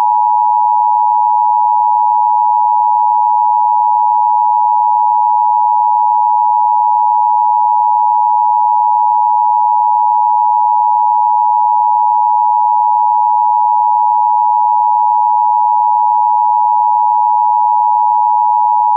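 Emergency-alert test tone: one steady, pure tone a little under 1 kHz, held unbroken at constant loudness. It is the attention signal of a broadcast emergency-system test.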